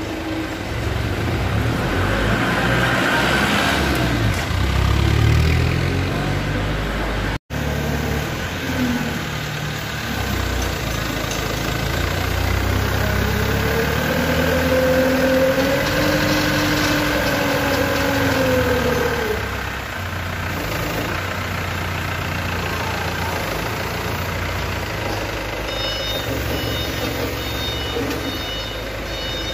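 Forklift engine running, its pitch rising and falling once over several seconds about halfway through as the forks work the load. A reversing beeper starts near the end.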